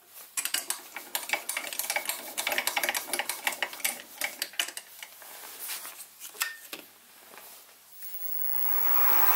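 Rapid irregular metallic clicking and rattling as the mini mill's table is cranked to bring the brass conrod under the end mill. Near the end the mill spindle motor starts and its whine rises in pitch as it spins up.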